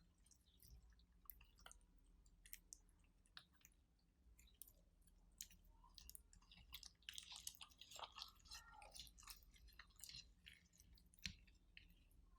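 Slime being mixed and kneaded by hand, with faint scattered squishes, small pops and crackles, thickest in the second half.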